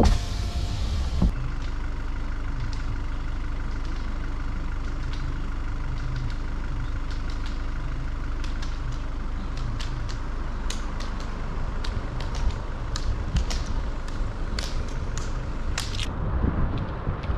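A car running at low speed on a gravel verge, a steady low rumble. There is a knock about a second in, and a scatter of sharp ticks in the last few seconds.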